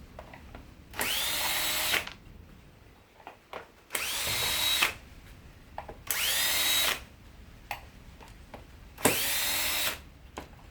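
Power drill run in four short bursts of about a second each, the whine rising in pitch at the start of each as the motor spins up, then holding steady.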